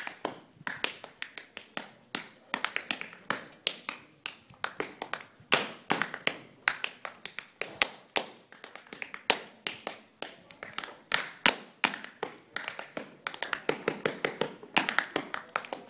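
A dancer's hard-soled shoes tapping on the dance floor in quick, uneven runs of sharp clicks, several a second, with no music behind them.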